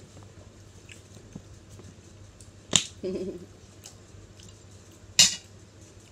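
A toddler eating pasta: two sharp clicks about two and a half seconds apart, with a brief vocal sound from her just after the first.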